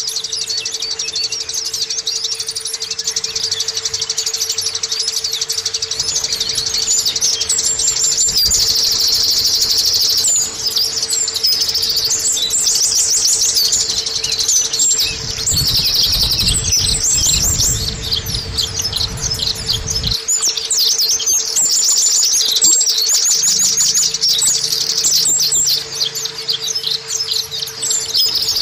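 White-eye (Zosterops, 'pleci') singing a long, fast, high twittering song that runs on almost without a break. A steady faint hum runs underneath.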